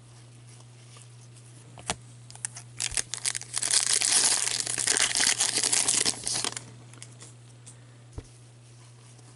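Foil wrapper of a Series 2 hockey card pack being torn open and crinkled by gloved hands. A few crackles come first, then a dense burst of tearing and crinkling for about three seconds from around the middle, over a steady low hum.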